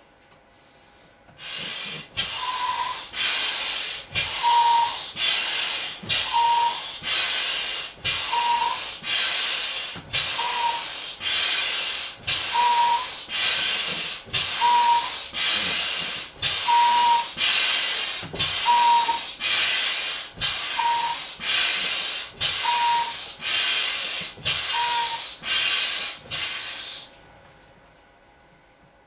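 Hand air pump inflating a large inflatable flamingo float: rhythmic hissing of air, about two strokes a second, with a brief whistle on about every other stroke. It starts about a second and a half in and stops near the end.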